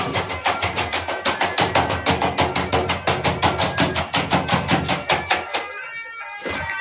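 Background music with a fast, even percussive beat of about eight strokes a second over held notes, breaking off briefly about six seconds in.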